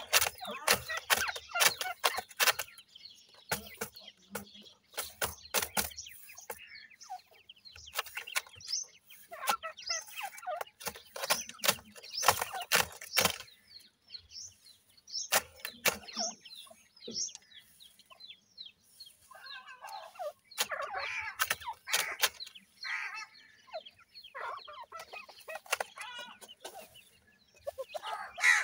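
Grey francolin chicks calling with short, repeated clucking notes, mixed with many sharp clicks.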